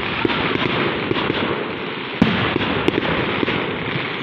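Fireworks going off: a continuous crackle dotted with small pops, and one sharper bang about two seconds in.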